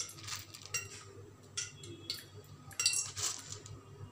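A metal spoon clinking and tapping against utensils several times at uneven intervals as whole spices are scooped out, over a faint low hum.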